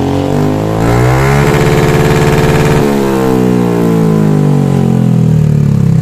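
Suzuki Burgman Street 125 scooter's single-cylinder four-stroke engine revved through an aftermarket Akrapovic-style slip-on exhaust with its silencer insert removed. The revs rise over about a second and a half, hold briefly, then fall back toward idle over the following few seconds.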